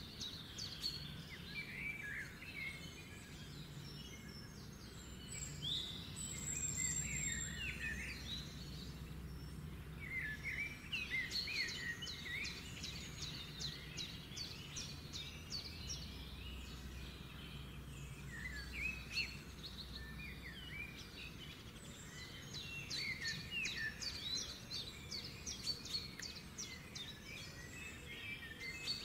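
Small birds chirping in clusters of quick rising and falling calls, over a steady low hum.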